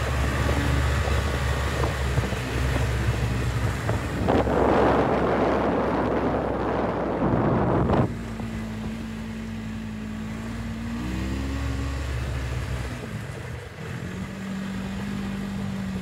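Yamaha snowmobile engine running while climbing a snow slope, heard from the rider's seat. From about four seconds in, wind buffets the microphone loudly and then cuts off suddenly. After that the engine runs more quietly, its tone wavering in pitch and then settling lower.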